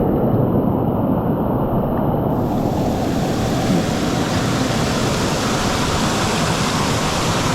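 Steady, loud rush of floodwater pouring through a creek and over waterfalls. It sounds muffled for the first two seconds or so, then brighter.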